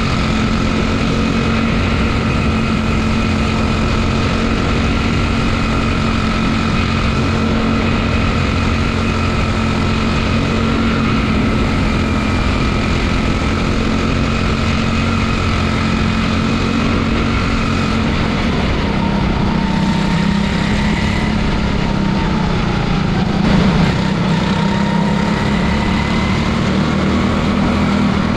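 Quarter midget's single-cylinder Honda 160 engine running at low, steady revs, heard from on board as the car rolls slowly in line; the pitch dips a little after about eighteen seconds, then climbs back.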